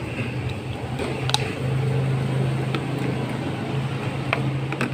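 Steady low hum of a nearby idling engine, louder for a couple of seconds in the middle, with a few light clicks as a straw is worked in a plastic cup of iced drink.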